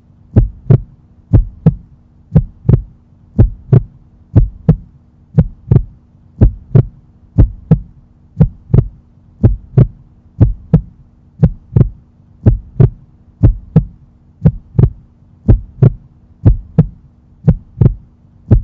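Heartbeat sound effect: a steady double thump, lub-dub, about once a second, over a faint steady hum.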